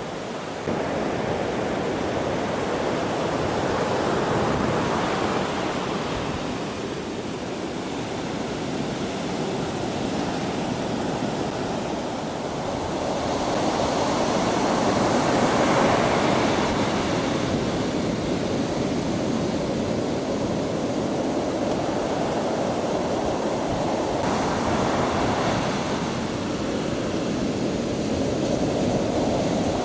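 Heavy ocean surf breaking on a sandy beach: a steady rush of breaking waves and foam that swells and ebbs as each set of breakers comes in, loudest about halfway through.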